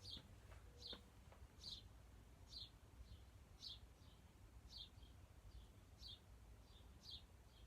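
Near silence over a faint low hum, with a small bird chirping softly about once a second.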